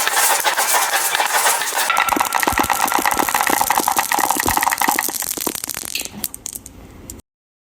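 Small toys rattling and clattering down a marble-run slope track in a dense run of quick clicks, thinning out and stopping about seven seconds in.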